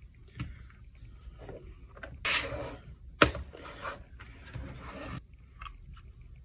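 Hands handling a plastic radio controller's shell while working at its screws, with scraping and rubbing sounds and one sharp click about three seconds in.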